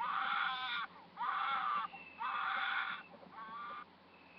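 A high-pitched voice gives repeated wailing cries, four in a row about a second apart, each under a second long, the last one fainter.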